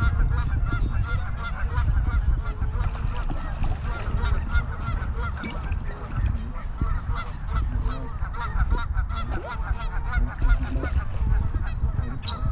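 Geese honking over and over, many calls overlapping, above a steady low rumble.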